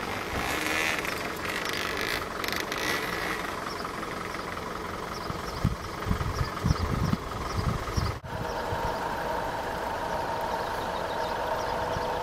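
GWR diesel locomotive idling with a steady engine hum that grows stronger after a brief drop about eight seconds in. A few low thumps, like wind on the microphone, come in the middle.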